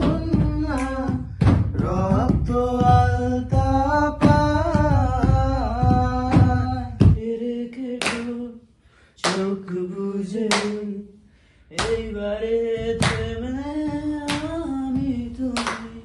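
A man singing a song unaccompanied, over a quick beat of low thumps that keep time, about two or three a second. About seven seconds in the thumps stop and a man sings on alone, pausing twice, with a few sharp claps or slaps.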